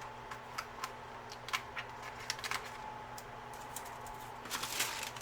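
Light, irregular paper clicks and crinkles from handling a sticker sheet as a small leaf sticker is peeled off and pressed onto a planner page, denser near the end.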